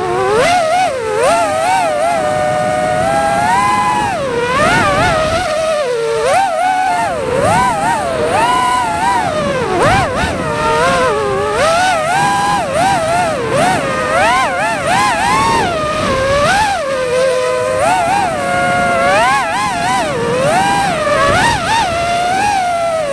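Quadcopter drone's electric motors whining, the pitch rising and falling constantly with throttle changes.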